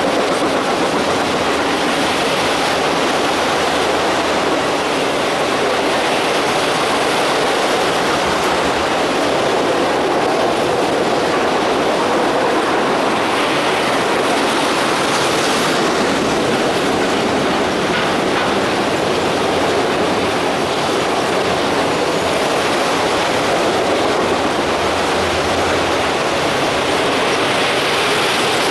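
Freight train of autorack cars rolling past, its steel wheels running on the rails in a steady, unbroken noise.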